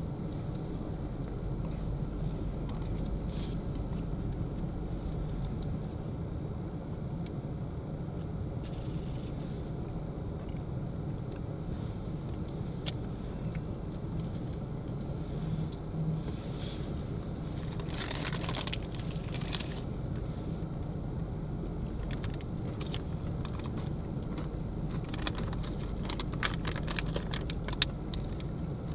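Steady low hum of a car idling, heard from inside the cabin, with rustling and light clicks of small things being handled, mostly past the middle and near the end, where one sharp click stands out.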